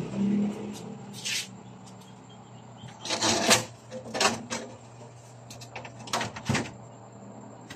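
Plastic egg trays and the incubator's rack knocking and clattering as eggs are set back in, a string of short knocks with the loudest cluster a little after three seconds. Under them runs the steady low hum of the incubator's motor.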